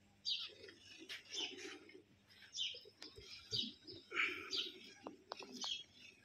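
Small birds chirping, short high chirps about once a second, over the soft hiss of milk squirting by hand into a steel pail.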